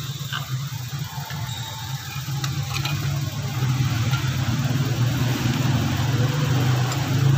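Steady low mechanical hum that grows a little louder about halfway through, with a couple of faint metal clinks as a coil-spring strut and spring compressor are handled.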